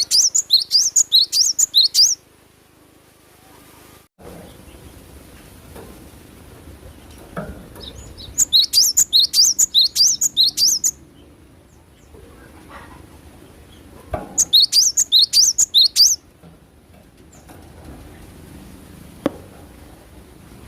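Glatik batu (cinereous tit) singing: three loud bouts of fast, repeated high rising notes, about five a second, each bout lasting about two seconds, with pauses of several seconds between them.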